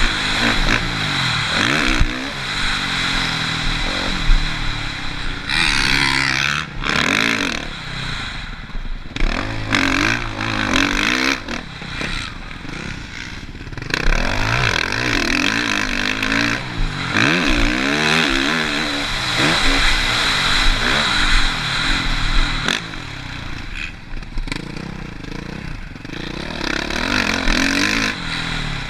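Motocross bike engine revving hard, its pitch climbing and dropping again and again as the rider throttles on and off, with brief cuts and clattering from the bike.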